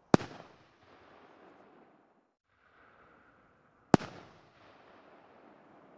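Two 3-inch aerial firework shells bursting, each a single sharp bang followed by a rolling echo that fades over about a second. The second bang comes about four seconds after the first.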